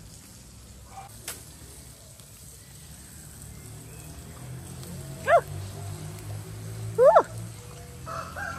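Two short animal calls, each a quick yelp rising in pitch, about two seconds apart. They are the loudest sounds here, over a faint low hum.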